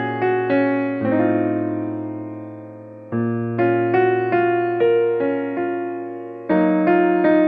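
Background piano music: slow chords and melody notes, each struck and left to fade.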